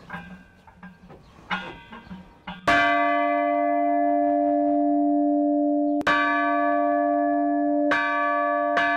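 Church bells rung by hand, their clappers pulled on ropes. After a few light knocks, a first strike comes about three seconds in and rings on steadily. Further strikes follow about six and eight seconds in, the last two close together.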